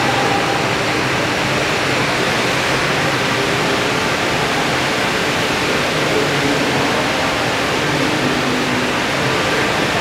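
Steady, even rush of the Rain Vortex, the world's largest indoor waterfall, pouring down through the centre of a glass dome.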